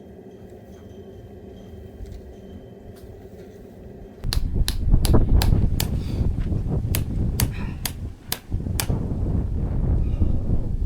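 A steady low hum, then from about four seconds in a run of irregular, sharp hammer-like blows on metal, each with a brief ring, over a low rumble.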